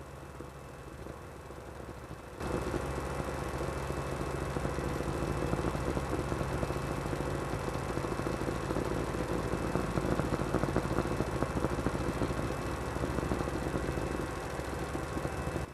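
An engine running steadily with a low, even hum; it comes in abruptly and much louder about two seconds in and cuts off suddenly at the end.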